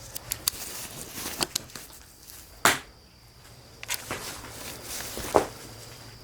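Footsteps of a person walking, uneven steps with scattered clicks and knocks, the sharpest about two and a half seconds in and again about five seconds in.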